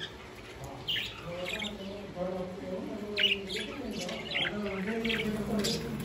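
Budgerigars and cockatiels in an aviary chirping and squawking: many short, high calls, scattered and overlapping.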